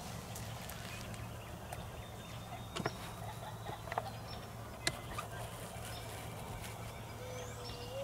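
Wild turkey toms flapping and striking at decoys: a few faint knocks over a steady low background.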